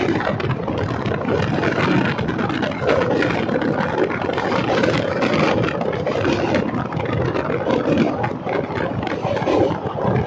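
Passenger train running along the track, heard on board: a steady rumble and rattle of the wheels and coaches.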